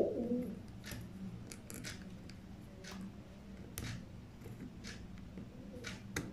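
Sharp, irregular light clicks and taps of 3D-printed PLA plastic parts being handled and pressed together on a toy wheel assembly, about ten in all, over a low steady hum. A brief low bird call is heard at the very start.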